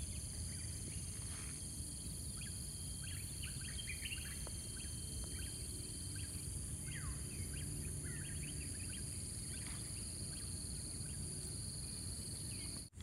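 Forest birds chirping and calling in many short notes, one falling in pitch, over a steady high-pitched insect drone and a low rumble. The sound cuts out briefly near the end.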